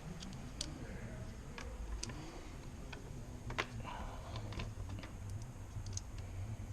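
Irregular light clicks and taps, a few a second, over a low steady hum: hand work on plastic car door trim parts.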